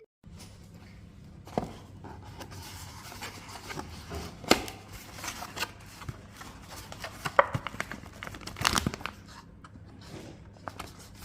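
Plastic packaging being handled, crinkling and tearing in irregular crackles with sharp clicks, over a faint steady electrical hum.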